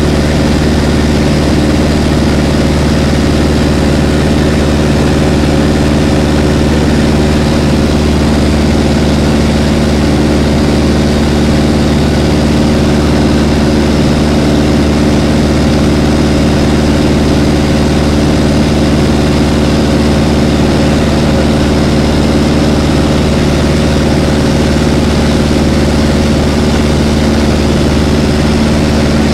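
Light aircraft's engine and propeller droning steadily in cruise, heard from inside the cockpit. The pitch holds even throughout with no change in power.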